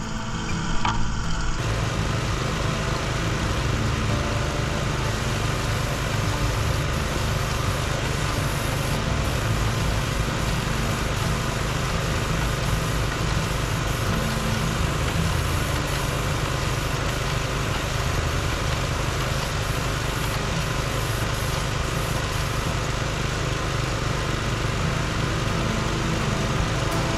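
Small gasoline engine on a line-striping paint machine running steadily at idle.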